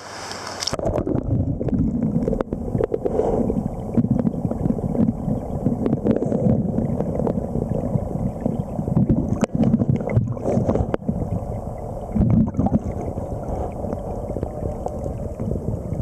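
Muffled underwater sound of moving river water heard through a camera held under the surface in a dredge hole: a rough, low rumble with scattered clicks and knocks. The higher sounds drop out under a second in, as the camera goes under.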